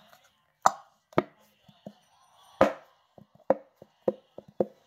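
Plastic Elmer's glitter glue bottle squeezed and shaken upside down, giving a dozen or so irregular sharp clicks and knocks; the nearly empty bottle's glue is stuck and hard to get out.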